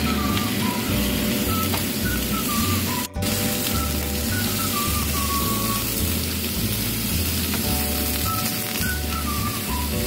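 Background music: a slow melody of stepping notes over held chords and a bass line, laid over a steady rain-like hiss. All of it drops out for an instant about three seconds in.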